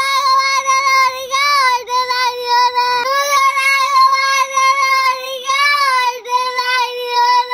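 A young girl crying hard: long wails held at one high pitch, breaking briefly for breath a few times.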